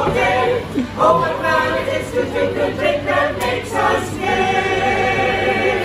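A choir singing, ending on a long held note with vibrato near the end.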